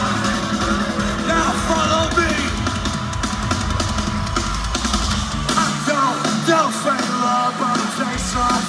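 A live rock band playing through a loud concert PA, with singing, heard from within the crowd. About five and a half seconds in the drums and bass drop away, leaving guitar and voices.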